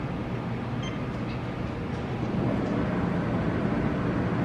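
Treadmill running with a person on it: a steady motor and belt rumble that gets a little louder about halfway through.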